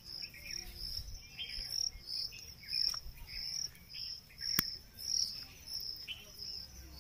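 Crickets chirping in a steady pulsing trill, about two to three pulses a second, with a few faint bird chirps. There are a couple of sharp clicks near the middle.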